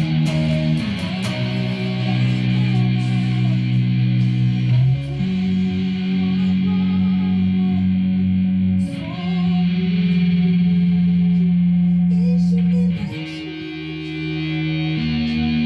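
Instrumental worship music from a band rehearsal: electric guitar through effects, playing long held chords that change about every four seconds.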